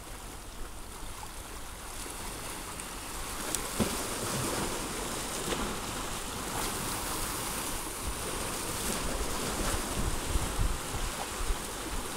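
Sea surf and wind on the microphone make a steady hiss that grows a little louder about four seconds in. A couple of faint clicks come just before, during a long surfcast with a spinning reel.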